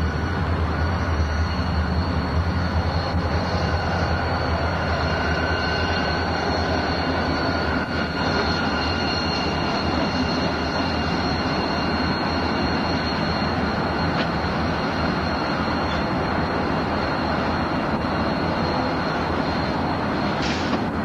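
Freight train passing below: diesel locomotives running and boxcars rolling over the rails, a steady low rumble.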